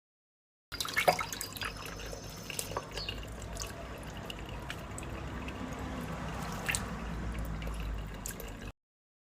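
Water dripping and splashing as a pet bird bathes, with sharp clicks, most of them in the first couple of seconds. The sound cuts in abruptly just under a second in and cuts out near the end.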